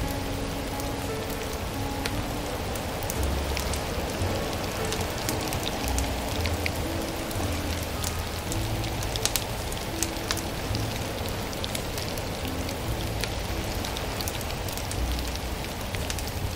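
Wood fire crackling, with frequent sharp snaps, over a steady rain-like patter. Soft, slow, low music notes run underneath.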